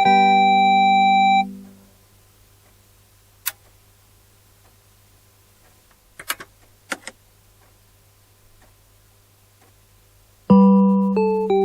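Recreated electronic chime of a Japanese disaster-prevention loudspeaker system. A held final note fades out about a second and a half in. A quiet pause follows, broken by a few faint clicks, and the chime melody starts again near the end.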